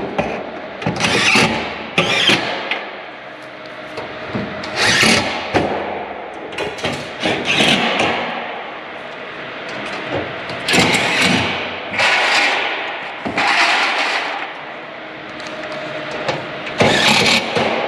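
Cordless power driver sending screws into light-gauge steel truss members: about nine or ten short bursts of whirring, each around half a second to a second long, with irregular pauses between them.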